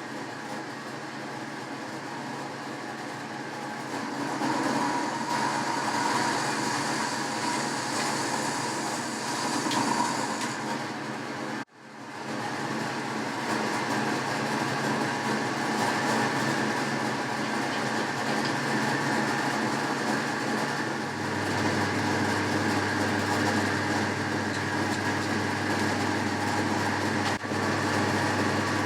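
Boxford metal lathe running with a steady mechanical hum and a rattle from its drive. It drops out briefly about twelve seconds in, and a deeper hum joins later on.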